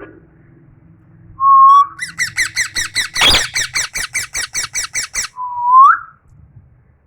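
Pet parrot calling: a short whistle, then a rapid run of chirps, about five a second for three seconds, with one harsher squawk in the middle, ending on a rising whistle.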